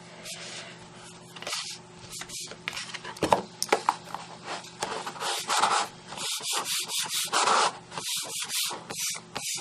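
Repeated rubbing strokes on cardstock, smoothing down a freshly glued paper joint, with a few small taps. The strokes come faster, about two a second, in the second half.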